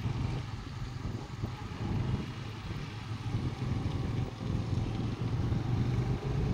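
Scooter engine running at riding speed, with wind buffeting the microphone.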